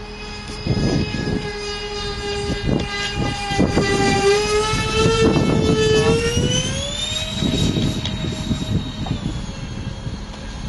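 The four electric ducted fans of a radio-controlled VC-10 model jet whining steadily in flight, their pitch rising about six seconds in and then holding higher. Irregular low rumbling gusts come and go underneath.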